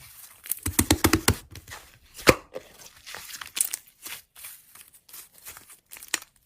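Slime being squeezed and pressed by hand, giving a run of crackling clicks and pops. The clicks come thick in the first second and a half, a sharp pop a little over two seconds in, then sparser clicks.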